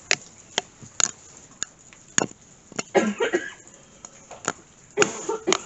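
A man gasping and breathing hard after feeling smothered, short gasps about three seconds in and again near the end, with sharp steps or knocks on a hard floor about twice a second at first, then sparser.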